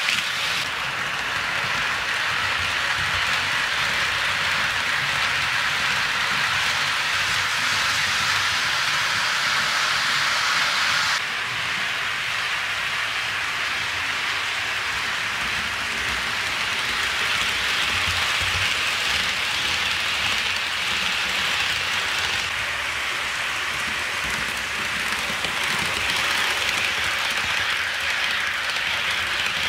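HO scale model freight train rolling past on sectional track: a steady rushing rumble of small metal wheels running over the rails. Its tone changes abruptly twice, about 11 and 22 seconds in.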